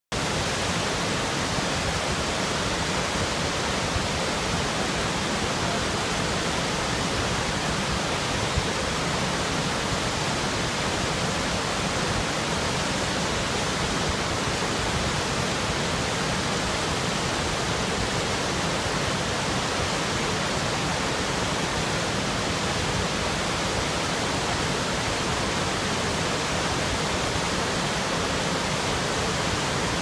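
Waterfall pouring down a rock face and rushing through a boulder-strewn creek: a steady, even roar of white water.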